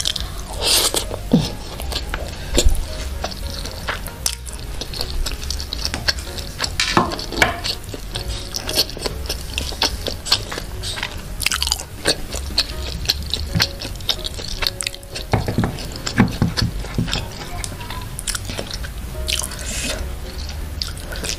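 Close-miked chewing of crispy fried duck: irregular wet crunches and mouth clicks as the mouthful is worked.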